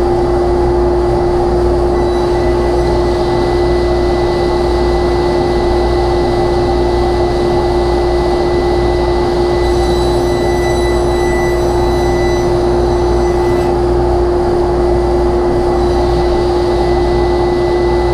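Table saw and dust collector running together: a steady, even machine drone with a constant held tone, no change in speed.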